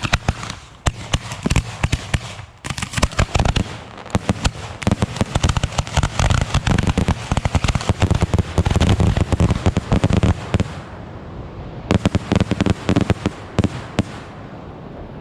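Fireworks going off: a long, dense run of rapid cracks and bangs, with brief lulls a couple of seconds in and again near the end, then tailing off.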